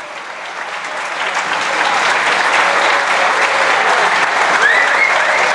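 Audience applauding, building up over the first two seconds and then holding steady.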